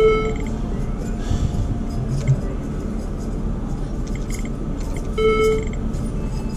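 Video poker machine playing a short electronic chime twice, once at the start and again about five seconds in, as hands are dealt, over the steady background din of a casino floor.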